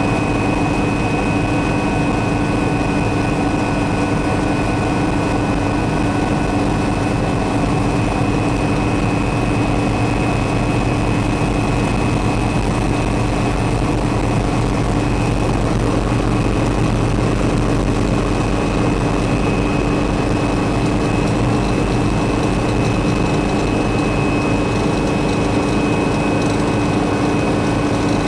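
Small helicopter's engine and rotor heard from inside the cockpit, a steady loud drone with a constant hum, during a descending approach into a confined clearing.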